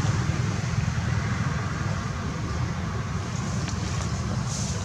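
Steady low rumble with a hiss above it: outdoor background noise with no clear event, and a few faint high ticks near the end.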